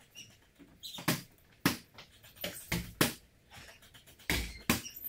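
A series of sharp knocks or thumps, about seven of them, irregularly spaced.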